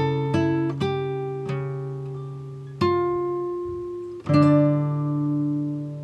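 Background music: an acoustic guitar picking single notes and chords, each left to ring and fade, with a fuller, louder chord struck about four seconds in.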